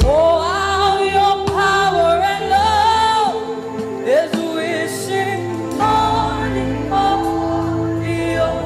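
Gospel worship music: a singing voice holding long notes that slide up and down over a steady accompaniment.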